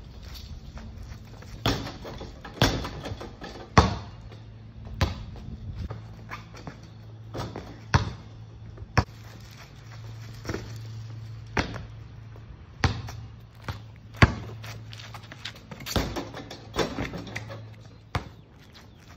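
Basketball session on an asphalt driveway: a string of sharp knocks roughly every second or so from the ball bouncing, feet landing and the portable hoop being hit. A low steady hum runs under the second half.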